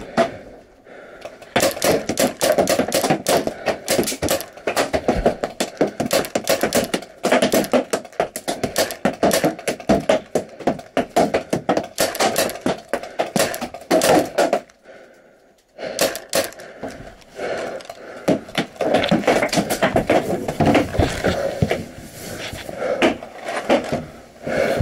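Paintball marker firing rapid strings of shots, a dense clatter of pops, with brief pauses about a second in and again around fifteen seconds in.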